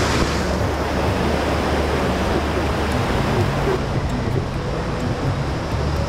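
Steady rushing of a nearby river, with a low rumble of wind on the microphone; the higher hiss of the water fades after the first second and again about four seconds in.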